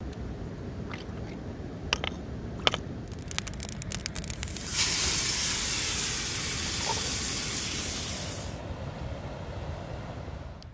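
Steak sizzling in a frying pan over a campfire as the pan flares up in flames: a loud hiss that starts about five seconds in and dies away about three and a half seconds later. Before it, sharp pops and crackles grow more frequent, over a low steady rush of running water.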